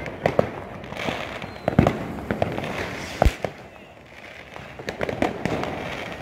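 New Year's Eve fireworks and firecrackers going off in the street: sharp bangs and pops at irregular intervals, the loudest near two seconds and just after three seconds in.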